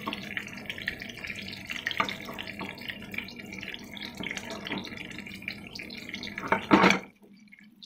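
Pot of water with fish cakes in it at a steady boil, bubbling with small pops. A louder knock or splash comes near the end, then the sound cuts off abruptly.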